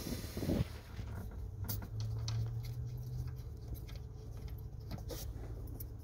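Faint scraping and a few light clicks as the plastic cap is twisted off the A/C low-pressure service port of a 2017–2022 Kia Sportage, over a steady low hum.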